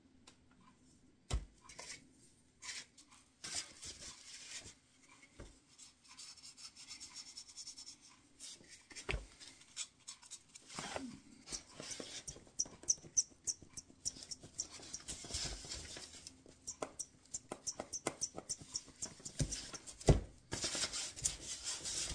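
Stiff paintbrush scrubbing and dabbing paint into the corners of a small walnut box's interior: irregular scratchy bristle strokes that grow denser in the second half, with a few sharp knocks as the box and brush are handled.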